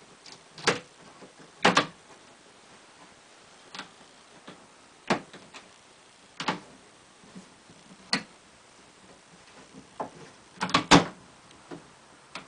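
Sharp knocks and clacks of a metal pinball side rail being handled and set against the wooden cabinet. There are several separate strikes spread out, and a quick cluster of knocks near the end is the loudest.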